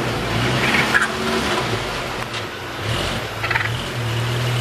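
A mail truck's engine idling steadily, with a wild turkey giving two short calls, one about a second in and another a few seconds later.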